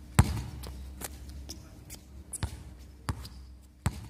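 Basketball bouncing on an outdoor concrete court as it is dribbled: several sharp bounces at uneven intervals, the loudest about a quarter second in, over a low steady hum.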